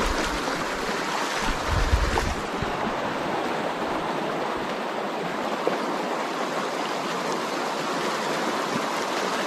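Fast river current rushing steadily over a shallow riffle, with a brief low rumble about two seconds in.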